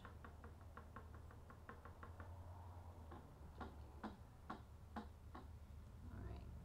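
Sponge dauber being tapped on an open Stampin' Up! ink pad to load it with ink: a fast run of light ticks, about seven a second for roughly two seconds, then a slower series of firmer taps about two a second.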